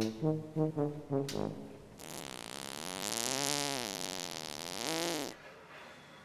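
A fart: a quick run of short pitched toots, then a long raspy fart of about three seconds whose pitch wavers up and down before it cuts off suddenly.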